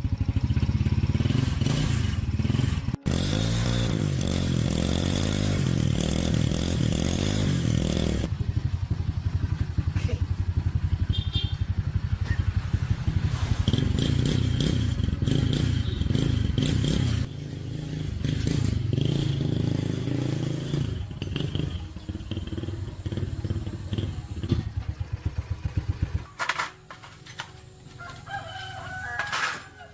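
Yamaha motorcycle engine running, revved up and down, in several spliced clips. Near the end the engine noise drops away and a rooster crows.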